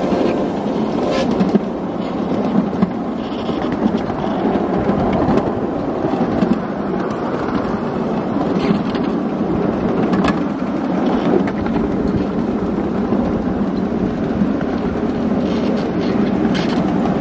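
Ride-on miniature railway train heard from aboard while running: a steady rumble of wheels on the track, with scattered clicks.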